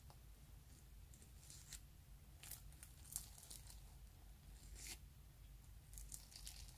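A metal spoon cutting and scooping through glitter-flake slime in a clear plastic cup, the slime giving faint crackling tears in a few short clusters.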